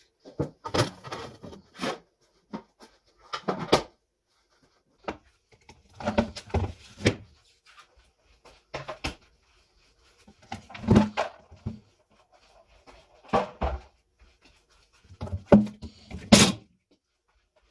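Containers, shelves and other items being handled and set down while a refrigerator is emptied and organised: separate clusters of knocks, clunks and rattles every second or two, with short quiet gaps between.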